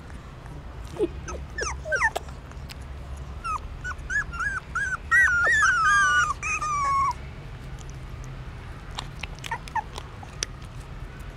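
Young puppies whimpering: a few short cries about a second in, then a run of short high squeaks at about two a second, ending in a longer falling whine around six to seven seconds in.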